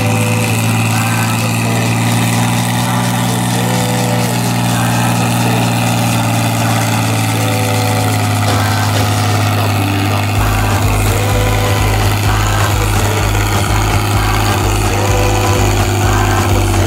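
Fiat 100-90 tractor's six-cylinder diesel engine running steadily under load while pulling a five-tine subsoiler through the soil. A low rhythmic throb joins about ten seconds in.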